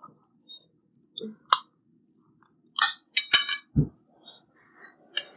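Chopsticks and spoons clinking against ceramic bowls and plates while eating: a few sharp clinks, a quick cluster of them about three seconds in, then a dull knock.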